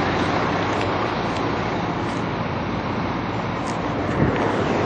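Steady vehicle noise: a constant wash of traffic with a low engine hum underneath.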